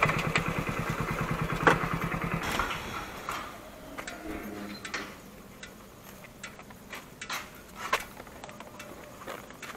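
Hero Splendor motorcycle engine idling with a steady beat, then switched off about two and a half seconds in. After that there are only scattered faint clicks and taps.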